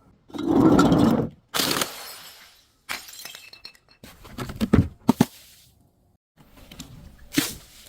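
Glass bottles breaking: a loud crunch about a second long near the start, then several sharp smashes and crackles, set apart by sudden silences.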